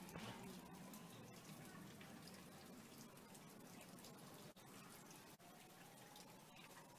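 Near silence: faint background hiss with a few small scattered clicks.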